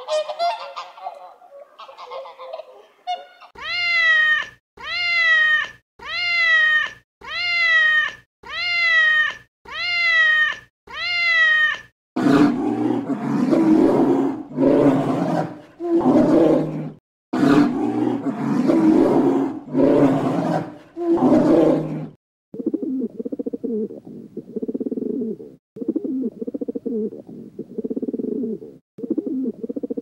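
A series of animal calls in three runs: first seven identical, evenly spaced pitched calls, about one a second; then about ten seconds of rough, low, noisy calls; then softer low calls, about one a second, near the end.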